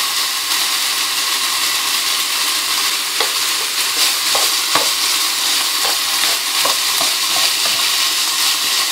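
Diced ham, mushrooms, onion and garlic sizzling in a hot frying pan as tomato paste is stirred in to toast, a steady frying hiss. The spatula taps and scrapes lightly against the pan a few times.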